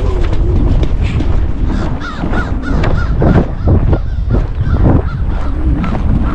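Crows cawing in a rapid series over heavy wind rumble on the microphone.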